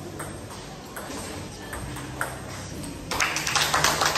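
Table tennis ball ticking off bats and table in a rally, sharp clicks every half second or so. About three seconds in, a louder, denser clatter of quick clicks begins.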